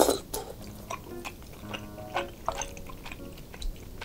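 Close-miked eating sounds of spicy cheese tteokbokki: a loud slurp of strands at the start, then wet chewing and mouth smacks. Soft background music plays underneath.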